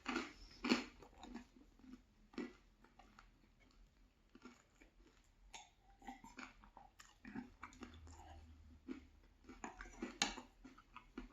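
Close-up chewing of meat pie and pie crust, with wet mouth smacks and an occasional crunch, in an irregular run of strokes with louder ones near the start and about ten seconds in.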